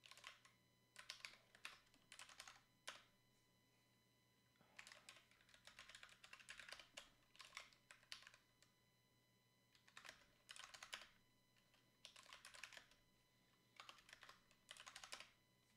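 Faint computer keyboard typing: short bursts of rapid keystrokes with pauses between them, as commands are typed at a terminal.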